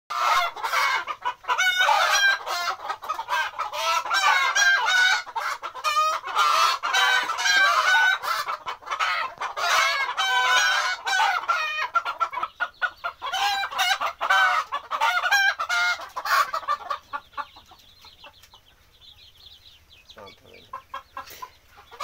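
A flock of desi chickens, hens and roosters, clucking and squawking together in a loud, overlapping din. About 17 seconds in the noise drops to faint, scattered clucks.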